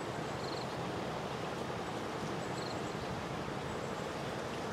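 Steady, even outdoor background hiss by the water, with two faint short high chirps about half a second and two and a half seconds in.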